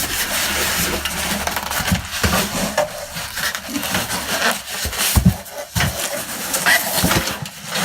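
Cardboard box and packing being handled while a computer case is unboxed: continuous rustling and scraping, with a few dull thumps about five seconds in.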